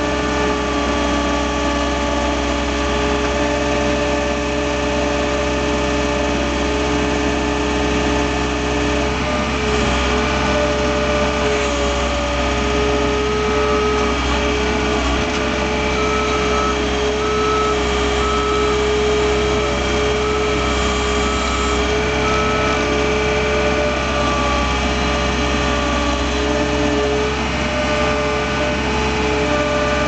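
John Deere 320 skid steer's diesel engine running steadily while it pushes and stacks snow, its pitch shifting a few times with the throttle and load. Midway a beeping repeats about once a second for several seconds.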